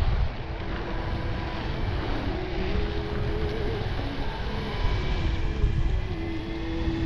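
Wind noise on the microphone over the steady rumble of an electric skateboard rolling along a trail. Faint music plays underneath.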